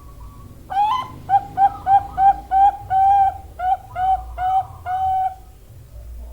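Female zebra dove (Bangkok-type perkutut) cooing: a rising opening note about a second in, then a quick run of about a dozen short, even coos, about three a second, the last few drawn out a little longer.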